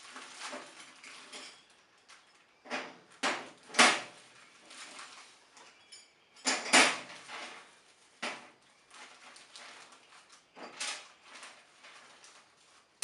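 Sheet-metal tool chest parts handled and knocked together: a series of sharp, irregularly spaced clanks and knocks, the loudest about four seconds in, with quieter rattling between them.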